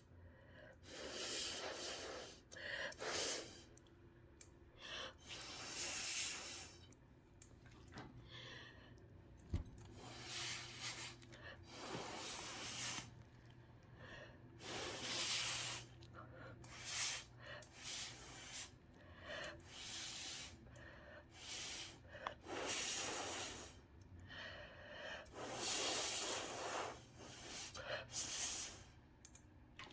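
Many short puffs of breath blown by mouth onto wet epoxy resin to push it around, each lasting about half a second to a second, with gaps between them, over a faint steady low hum.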